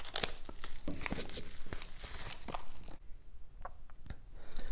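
Paper and plastic packaging crinkling and rustling as a card is unwrapped from a padded mailer: quick crackles for about three seconds, then a few soft clicks near the end.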